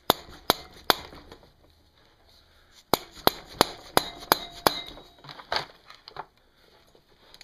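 Hammer blows on a hand impact driver, breaking free tight screws on the camshaft plate of a Honda ATC110 engine: three sharp metallic strikes at the start, then a quicker run of about seven, and one or two more.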